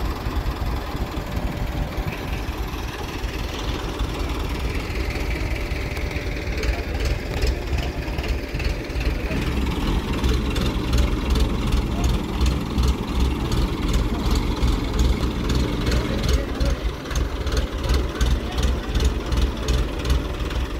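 Mobile crane's diesel engine running steadily, with a fast, regular knocking that sets in about halfway through.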